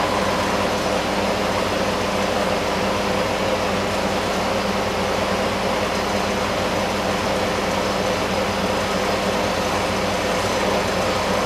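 Nuair Tech Pro portable air compressor running steadily: a 1.5 kW electric motor belt-driving a B2800B twin-piston pump. It is the reduced-noise pump, with a redesigned valve plate and a damped intake filter.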